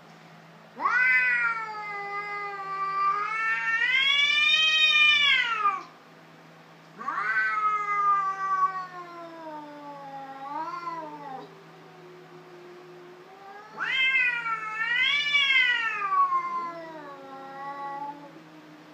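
Cats caterwauling in a fight: three long, loud yowls that rise and fall in pitch, with a quieter, lower drawn-out moan between them.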